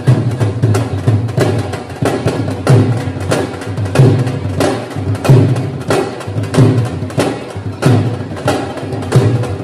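Punjabi dhol played in a fast dance rhythm: deep booming bass strokes under a quick stream of sharp, cracking stick strikes.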